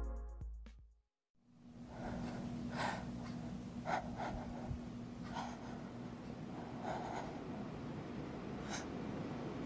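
Electronic intro music fades out in the first second, then after a short silence a quiet room hiss comes up with about six soft, scratchy breaths and rustles at irregular intervals from a person sitting with a cloth bag pulled over their head.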